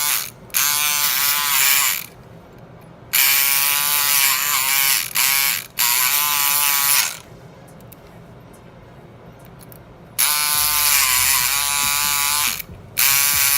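Kronos electric pick gun buzzing in about five bursts of one to two and a half seconds each, its motor whine wavering in pitch, as its pick rattles the pins of a Master Lock padlock to pick it open.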